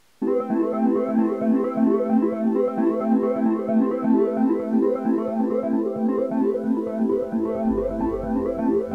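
Background music on synthesizer or electric keyboard: rapid repeated notes over a steady held tone. It starts abruptly just after a brief silence, and a deeper bass joins near the end.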